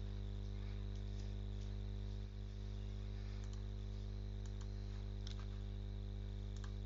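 Steady electrical hum and buzz with a faint high whine above it, with a few faint scattered clicks.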